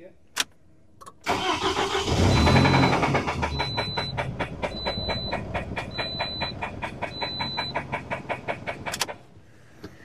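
Car's gasoline engine cranked and started. It runs with an even pulse of about six beats a second, then is switched off suddenly near the end. One fuel injector has a noid light wired in series with it, which raises that injector's resistance.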